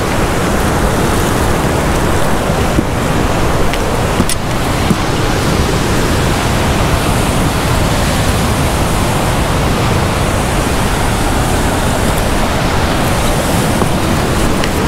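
Steady rushing noise of ocean surf breaking against the rocky shore, mixed with wind buffeting the microphone.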